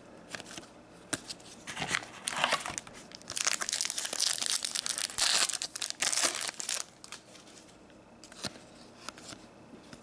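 Foil wrapper of a hockey card pack crinkling and tearing as it is ripped open by hand, loudest between about two and seven seconds in. A few light clicks of trading cards being handled come before and after.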